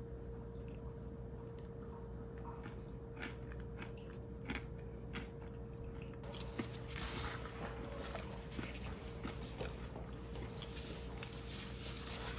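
Someone eating yogurt with crunchy yuzu granola: close chewing and crunching, sparse at first and busier from about halfway through, over a low steady hum.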